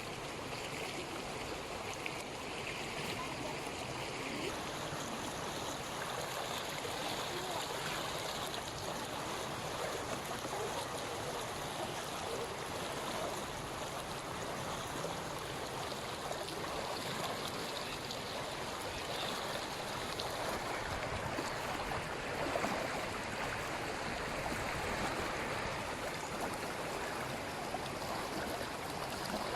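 Floodwater flowing and rushing steadily, an even watery rush that holds on without break.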